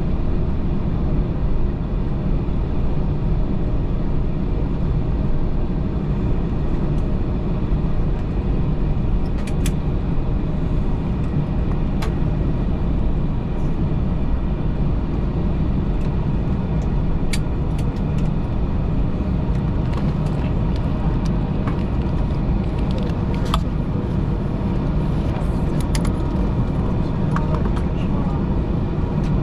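Steady engine and airframe rumble heard inside an Airbus A321-211's cabin, even throughout, with a few sharp clicks scattered through it.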